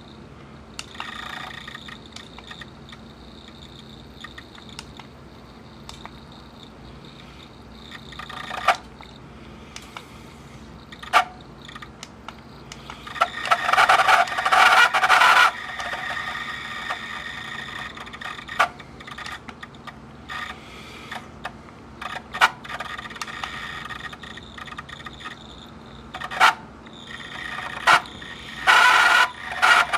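Pioneer CT-W840R cassette deck's right-hand transport struggling while it plays a cassette: irregular scraping, squealing bursts and sharp clicks over a steady low hum, loudest in the middle and again near the end. Since the tape itself is good, the noise points to a fault in the deck's own mechanism.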